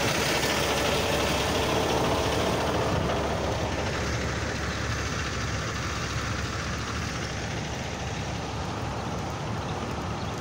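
Road traffic on wet pavement: vehicle engine noise with tyre hiss, slowly fading as it passes away.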